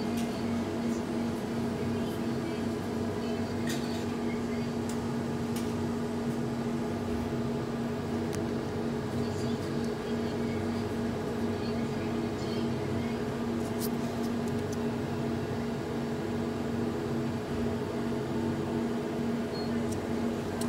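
Steady electric hum with several constant tones from the open refrigerated display cases' fans and compressor, with a few faint clicks.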